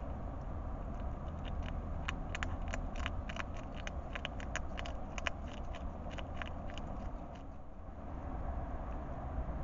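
A hedgehog chewing and crunching food from a dish: a run of sharp, irregular clicks, several a second, over a steady low hum. The clicks stop about seven seconds in.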